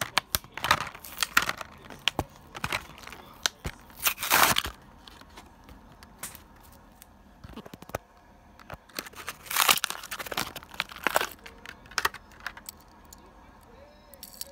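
Hot Wheels blister pack being torn open: the plastic bubble crackling and the cardboard backing tearing, in irregular bursts of crinkling and sharp cracks. The bursts come in two clusters, over the first four seconds and again about nine to eleven seconds in, with quieter handling between.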